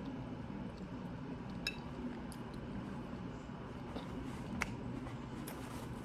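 Steady low room hum with a few faint light clicks, two of them about two and four and a half seconds in.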